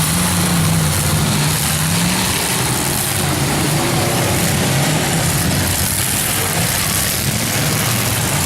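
Demolition derby car engines running, with the engine pitch wavering up and down as they idle and rev.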